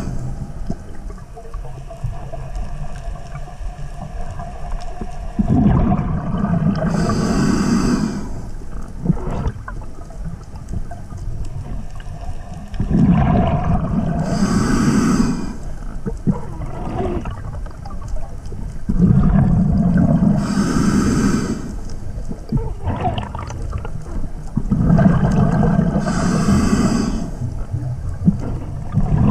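Scuba diver breathing underwater through a regulator, about one breath every six seconds. Each breath is a rumbling gurgle of exhaled bubbles with a high regulator hiss, and quieter stretches lie between.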